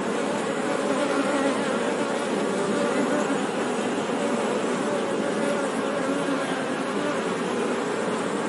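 Honey bees buzzing: many wings together make a steady hum, with several wavering pitches overlapping.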